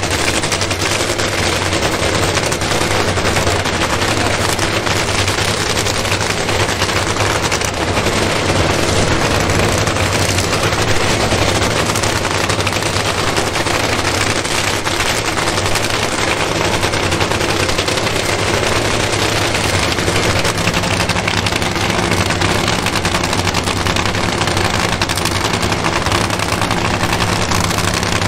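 Supercharged nitromethane-burning V8 of a nitro drag-racing car idling steadily, its exhaust a rapid, harsh crackle over a low, even drone.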